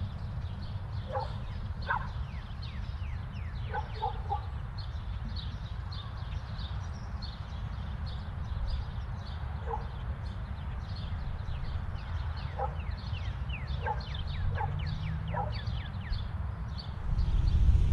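Outdoor ambience: many small birds chirping, each chirp a quick falling note, with occasional short lower-pitched calls and a steady low rumble that swells about a second before the end.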